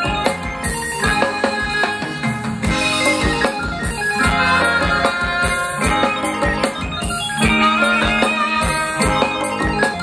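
Live Thai ramwong dance music from a band: a keyboard melody over a steady drum beat.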